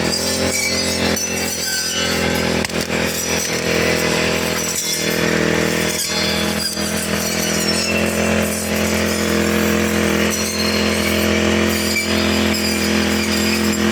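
Four-stroke brush cutter engine running steadily under cutting load, with a few short clicks along the way.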